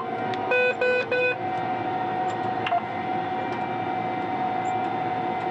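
Combine harvester running with a steady whine. About half a second in, three short electronic beeps come in quick succession.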